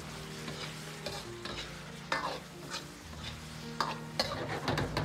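Steel wok spatula stirring and scraping against an iron wok several times, the loudest strokes near the end, with a steady sizzle from the thick sauce as it cooks down around braised pork intestines, potatoes and chillies.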